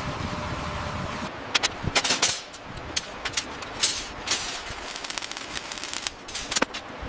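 A steady rushing noise, then from about a second in a run of sharp, irregular knocks and clicks, several close together.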